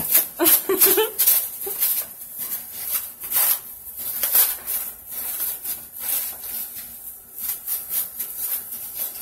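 Plastic cling wrap crinkling and rustling as it is pulled and unwound off a wrapped package in handfuls, an irregular run of sharp crackles.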